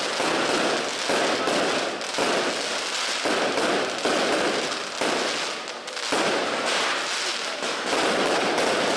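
Firecrackers going off in a dense, continuous crackle of rapid bangs, swelling and easing about once a second.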